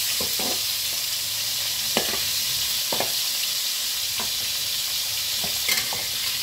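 Fish steaks frying in hot oil in a steel wok, a steady sizzling hiss, with a metal spatula giving short taps and scrapes against the pan about once a second.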